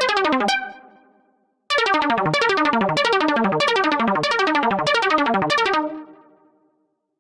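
Electronic synthesizer pattern played from a Maschine MK2 groove production system: a fast, pulsing synth line of repeated falling sweeps, about one every 0.6 s. It stops shortly after the start and rings out, starts again, then stops once more and fades to silence.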